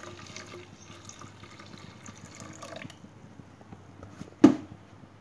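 Coconut milk poured from a jug into a pot of curry paste, splashing and trickling for about three seconds, then one sharp knock about four and a half seconds in.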